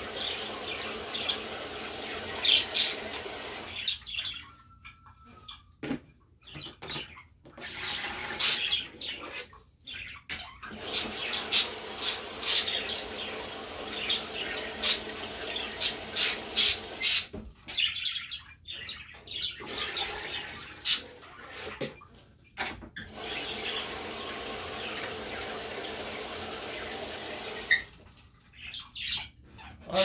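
Kitchen tap running into a sink while a plastic jug is filled, with sharp knocks and clatter from handling the jug and dishes. The sound breaks off abruptly several times into near-silent gaps.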